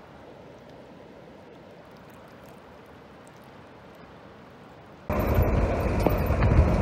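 Soft, steady ambient noise of the open sea and breeze, then about five seconds in a sudden switch to loud wind buffeting and road noise from a vehicle driving with its window open.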